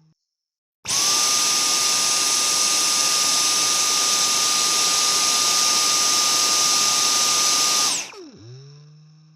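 Vacuum cleaner switched on, its motor whining up to speed almost at once, then running steadily with a high whine over a rush of air for about seven seconds. It is switched off near the end and the motor spins down with a falling pitch, fading away.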